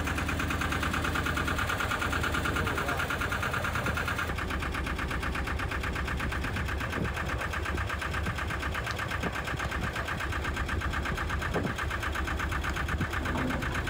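A 13.5-horsepower narrowboat engine running steadily at low speed, with an even, fast beat.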